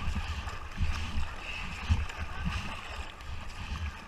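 River water splashing and gurgling around a camera held at the waterline by someone floating in the current, with a steady low rumble and a few sharper splashes.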